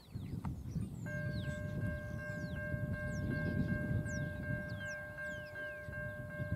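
A level crossing warning bell starts up about a second in and rings steadily, a quick ding repeated about three times a second, over a low rumble from the approaching diesel train. Birds chirp with short falling calls throughout.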